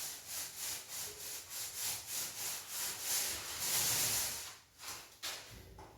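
Rhythmic rubbing strokes on a surface, about two and a half a second, louder for a moment near the middle and then fading.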